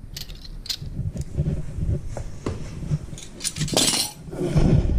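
Cutlery and dishes clinking and knocking against each other, a scatter of short sharp clinks with a louder clatter about four seconds in.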